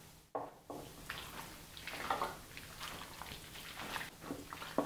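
Hands mixing raw turkey-breast chunks in an oil and mustard marinade in a glass dish: soft wet squishing and slapping in short, irregular sounds.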